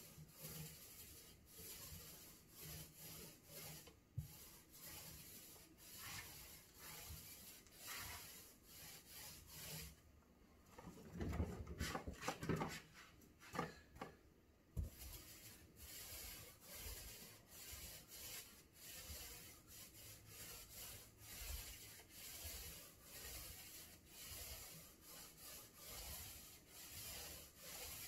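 Paintbrush stroking gray paint onto a wooden cabinet panel: soft, faint brushing at roughly one stroke a second. About halfway through comes a louder spell of knocking and handling as the brush is reloaded at the paint tray.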